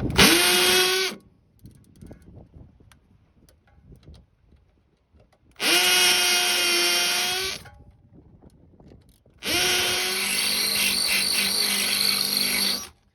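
Power drill running an extraction bit into a stripped sway bar link bolt: three bursts of motor whine, each winding up quickly, the last one longest, with small knocks between.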